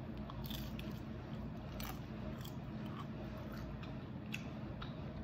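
Close-up eating sounds: a woman biting and chewing a crisp-fried birria taco, with a few sharp crunches scattered through.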